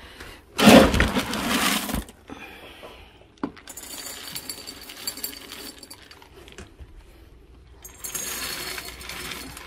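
Dry cat kibble being scooped from a storage bin and poured into ceramic cat bowls: a loud rustle of kibble about half a second in, scattered rattling, then kibble clinking into a ceramic bowl near the end.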